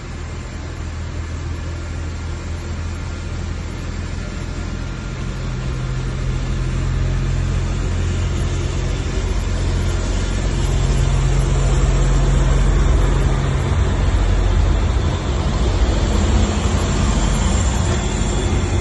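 Ferrovia Circumetnea Newag Vulcano diesel railcar pulling slowly past close by, its diesel engine running with a steady low hum. The sound grows louder as the cab comes alongside, loudest a little past the middle, and stays loud as the cars roll by.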